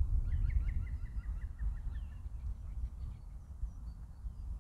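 Wind buffeting the microphone with a low, uneven rumble that eases off toward the end, while a small bird gives a rapid run of chirps in the first two seconds and a few scattered calls after.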